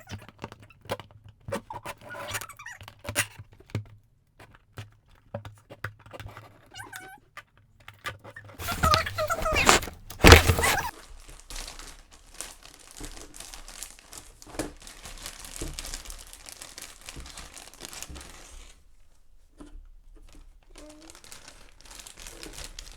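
Toy packaging being opened by hand: plastic and cardboard crinkling, rustling and tearing in irregular bursts, loudest about nine to eleven seconds in.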